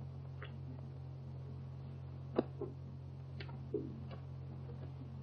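Steady low hum and hiss of an early sound film's soundtrack, with a few faint scattered clicks, one sharper click about two and a half seconds in.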